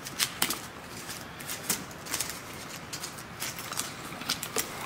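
Romex cable's plastic jacket being cut and pulled off with a utility knife at a plastic electrical box: irregular small clicks, scrapes and crinkles of the sheathing and wire.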